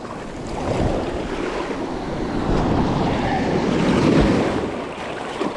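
Surf breaking and washing up over the sand at the water line, building to a peak about four seconds in and then easing off, with wind buffeting the microphone.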